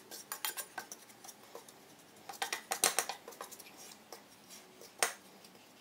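Wooden spoon scraping and tapping against a frying pan as dry desiccated coconut is stirred and toasted, in uneven groups of short scratchy strokes, with one sharp knock near the end.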